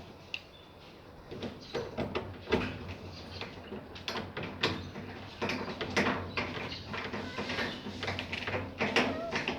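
Irregular knocks, clicks and rattles of washing-machine parts being handled and fitted back into place during reassembly.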